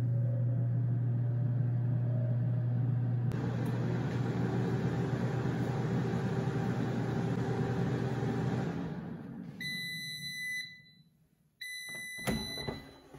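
PowerXL Vortex Pro air fryer's fan running with a steady hum, then winding down as the cooking cycle ends. Two long beeps follow, signalling that cooking is done, and then a few clicks as the basket is pulled out.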